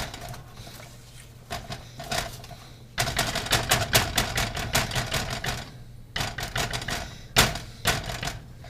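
Whisk stirring a thick sour cream dip in a bowl, clicking and tapping against the bowl's sides: a few single taps, then a fast run of clicks for about three seconds in the middle.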